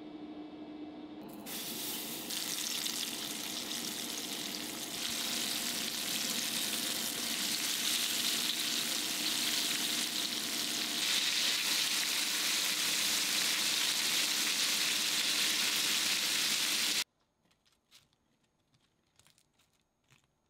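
Flour-coated chicken pieces shallow-frying in hot olive oil for karaage, with a dense, steady sizzle. The sizzle starts about a second and a half in, grows louder in steps, and cuts off suddenly near the end, leaving a few faint clicks.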